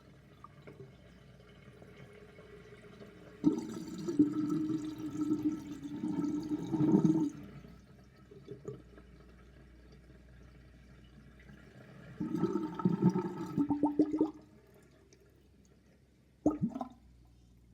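Bathroom sink drain gurgling as water swirls down the plughole, in three bouts: one of about four seconds, one of about two seconds, and a short gulp near the end.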